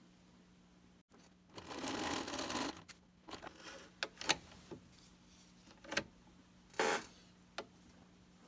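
Domestic sewing machine running for just over a second, zigzag-stitching knit fabric, then a series of light clicks and short handling noises at the machine.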